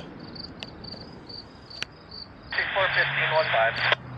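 Crickets chirping steadily in a high pulsing rhythm, about three chirps a second. Near the end, a burst of about a second and a half of railroad scanner radio, hiss with a faint garbled voice, ends with a click.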